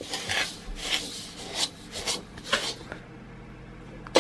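Metal spoon scraping and rubbing through butter and caster sugar in a mixing bowl as they are creamed together. It makes a run of gritty strokes, about two a second, that die away about three seconds in.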